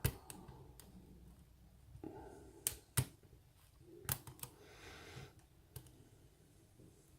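Lock picking: a metal pick and tension tool clicking and tapping on the pins and core of a pin-tumbler lock while the pins are set toward a false set. About eight sharp clicks come at irregular spacing, the loudest two about three seconds in.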